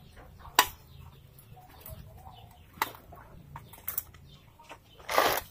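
A few sharp clicks and knocks from a hand working a satellite-dish pole, spaced a second or more apart, then a short rough scraping noise near the end.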